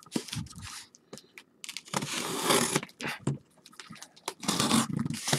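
Packaging of a sealed case of trading-card boxes being ripped open: irregular scraping and tearing with scattered clicks and knocks, the longest tear about two seconds in and another near the end.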